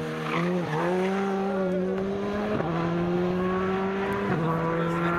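Rally car engine pulling hard as the car accelerates away, its note climbing, then dropping in two steps with upshifts, about two and a half and four and a half seconds in.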